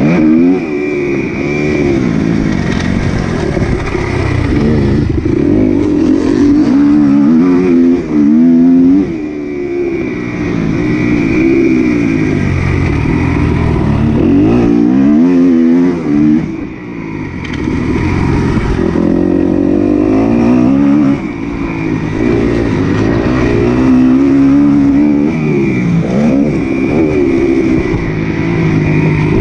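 Several motocross bike engines racing, overlapping, each revving up and dropping back over and over as riders accelerate and shift.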